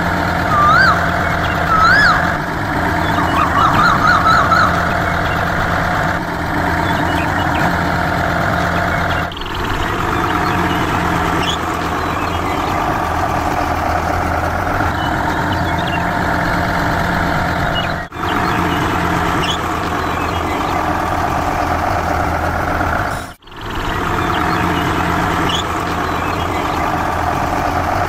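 Truck engine running with a steady drone, as a sound effect laid over the scene, with brief dips where the sound is cut. Near the start there are a few rising-and-falling whistle-like tones, the last a quick warble.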